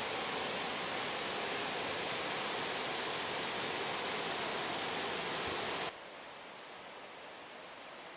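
Steady rush of falling water from a waterfall, Wallace Falls' Middle Falls seen close up. About six seconds in it cuts off sharply to a fainter steady rush.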